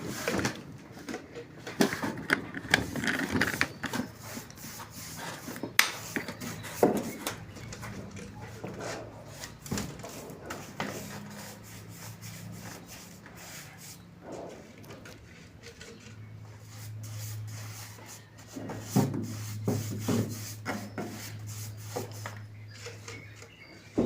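Irregular knocks and scraping, like rubbing on wood, with a low steady hum under them through the middle and later part.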